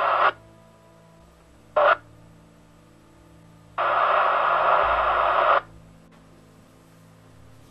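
Midland 203 CB radio's speaker receiving on channel 19: bursts of static hiss that cut in and out, a short one about two seconds in and a longer one of nearly two seconds from about four seconds in, with the receiver falling quiet between them.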